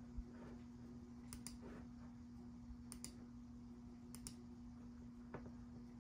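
Quiet computer clicks, three quick double clicks and one single click, over a steady low hum.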